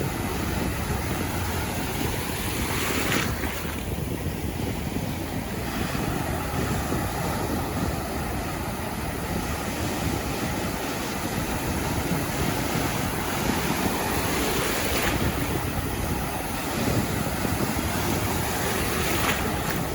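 Gentle ocean surf rolling onto the beach: a continuous wash of breaking waves, with a few brief louder breaks.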